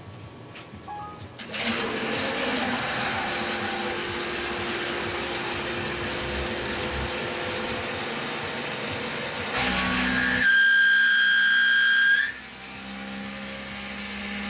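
CNC milling machine starting its cut: a steady hiss of coolant spray and machine noise comes on suddenly about a second and a half in. Near the end a loud high-pitched whine with overtones sounds for about two seconds and cuts off, leaving a lower steady hum.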